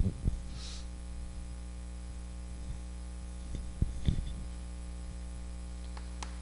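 Steady low electrical hum, with a few dull knocks near the start and about four seconds in. A brief swipe of a chalkboard eraser comes just under a second in, and sharp taps of chalk on the chalkboard begin near the end as writing starts.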